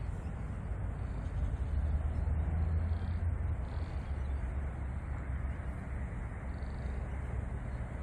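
Outdoor park ambience: a steady low rumble with a few short, faint bird calls.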